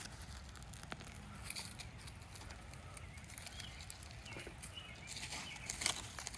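Faint rustling and crackling of yellowing red thumb fingerling potato plants being pulled up by hand out of the soil, with scattered small snaps and clicks.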